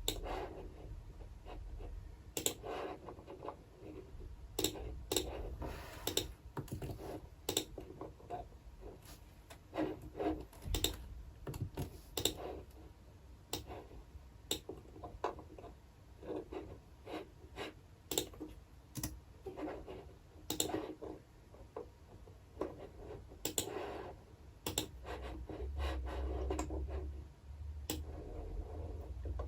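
Typing on a computer keyboard in irregular bursts of key clicks, with short pauses between runs.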